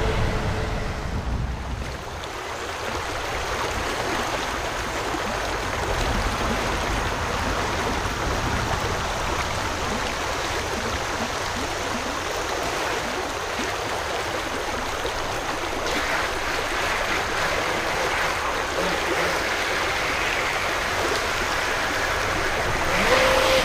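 Shallow creek water rushing over rocks in a riffle, a steady even rush.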